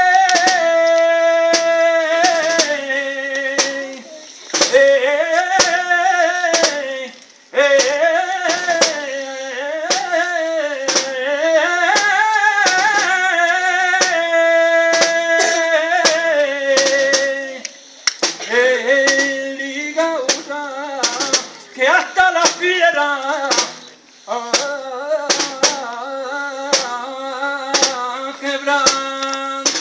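A man sings a saeta solo to the crucifix: long, ornamented phrases with held notes, broken by brief pauses for breath, with sharp clicks throughout.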